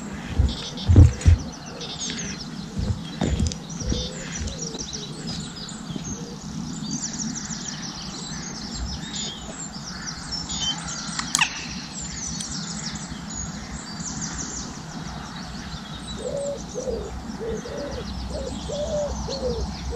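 Several small birds chirping and singing, with a low call repeated several times near the end and a few low thumps in the first few seconds.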